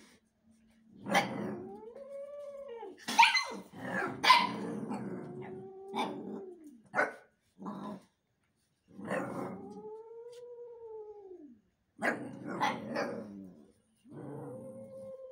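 A cat and young dogs squaring off: long drawn-out growling cries that rise and then fall in pitch, several times over, broken by short sharp barks and spits, the loudest of them around three to five seconds in and again around twelve seconds.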